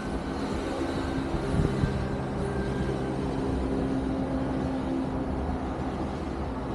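Steady low mechanical rumble with a droning hum, like a heavy vehicle or train running, and a brief knock about two seconds in.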